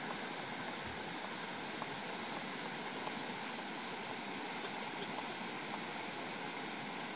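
A steady rushing hiss of outdoor background noise, even throughout, with a few faint ticks.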